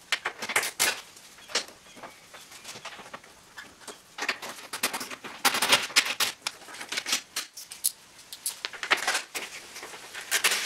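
Irregular bursts of light clicking and rattling from hand work fastening the Jeep Liberty's plastic grille, as its small Torx screws are started and driven in.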